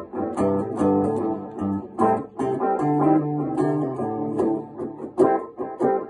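Electric guitar played with a clean tone, a run of quickly picked single notes and chords.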